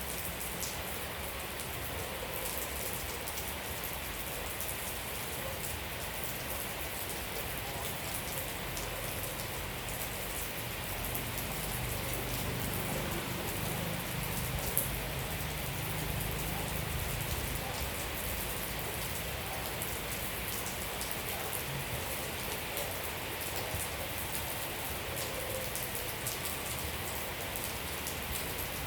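Steady rain falling, with many small drop taps throughout and one sharper tap about halfway.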